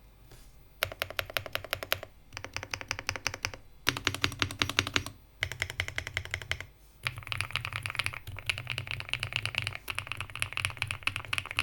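Stock Mechlands Vibe99 mechanical keyboard with Cream Mint switches being typed on fast, in runs of rapid keystrokes separated by brief pauses, starting just under a second in.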